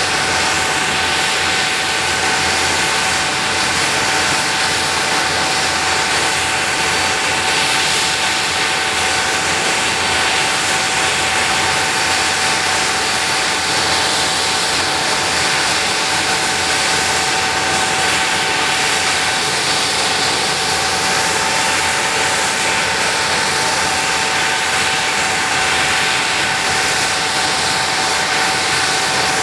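The engines of a Handley Page Victor K2 tanker, four Rolls-Royce Conways, running steadily at low power with the aircraft standing still: a loud jet rush with a steady whine over it.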